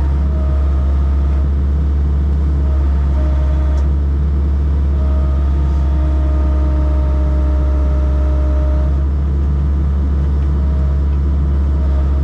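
Heavy diesel engine running steadily at constant speed, a deep even hum.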